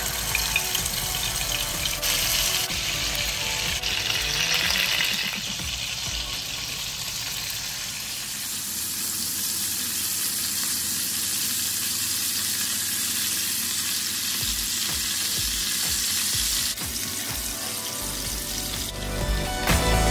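Marinated chicken pieces sizzling steadily as they shallow-fry in hot oil in a non-stick pan.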